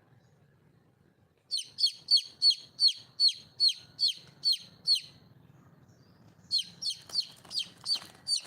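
Wild junglefowl hen calling for a mate: two runs of short, high, falling calls at about three a second. The first run of about ten starts a second and a half in; the second of about seven follows after a short pause.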